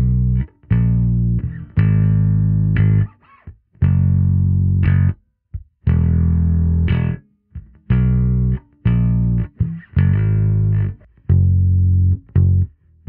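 Electric bass guitar played direct through an amp-and-compressor modeller, sounding sustained notes that are cut off between short phrases. First comes a five-string Schecter P Custom with a Nordstrand Power Blade neck pickup. About eleven seconds in, a Glarry GP Pro with a DiMarzio Relentless pickup and flatwound strings takes over, with a darker, less trebly tone.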